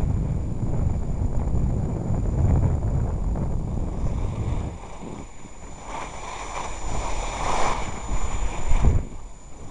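Wind buffeting the microphone of a camera carried by a skier on the move, a loud low rumble that eases about five seconds in. Then the hiss of skis sliding and scraping on packed snow, strongest around seven to eight seconds in.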